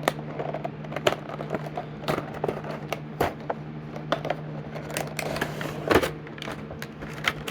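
Cardboard-and-plastic packaging of a die-cast toy car 5-pack being handled and opened: irregular crackles, clicks and scrapes, sharpest about six seconds in. A steady low hum runs underneath.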